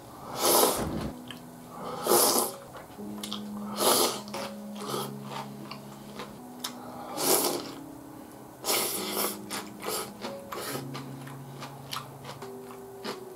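A person eating: chewing and small wet mouth clicks, with about five short rushes of air or slurping, over soft background music of long held notes.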